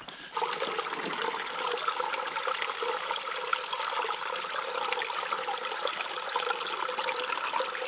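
Shallow creek water running steadily over and between rocks, starting suddenly about a third of a second in.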